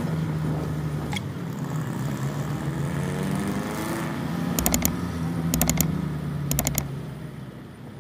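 Jeepney's Isuzu diesel engine running steadily under way in traffic, with three short clattering knocks about a second apart midway through, fading near the end.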